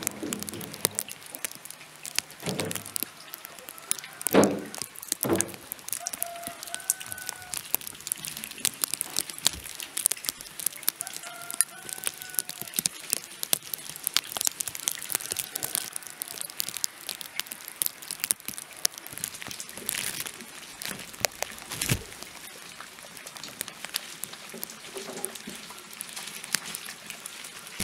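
Vegetable heads thudding into a metal wheelbarrow a few times early on. After that comes steady crackling of footsteps and wheelbarrow wheels over fallen leaves, with a few short bird calls.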